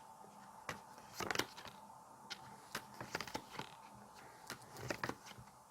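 Faint, irregular small clicks and light rustles, about a dozen scattered short ticks.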